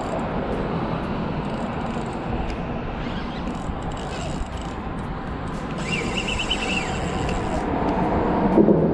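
Steady rumble of road traffic on the bridge overhead, with a brief high twitter about six seconds in and a louder low knock near the end.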